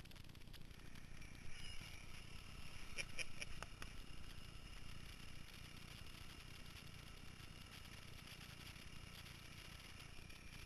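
Small portable air compressor running steadily while it pumps up a dirt bike inner tube, a low hum with a thin steady whine over it. A few light clicks come about three seconds in.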